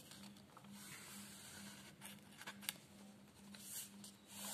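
Faint scratching of a ballpoint pen drawing long straight lines on a sheet of paper, in a few short separate strokes.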